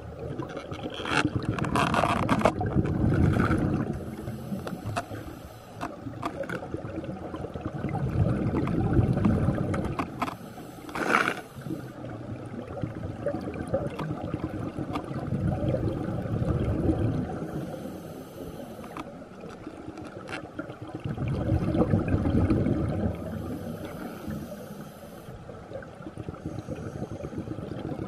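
Scuba diver's exhaled bubbles from an open-circuit regulator, recorded underwater: a rumbling gurgle that swells with each breath about every six to seven seconds, over a steady underwater hiss.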